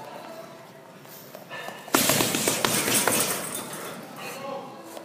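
Punches landing on a hanging heavy bag: a quick flurry of thuds starts sharply about two seconds in, then fades off.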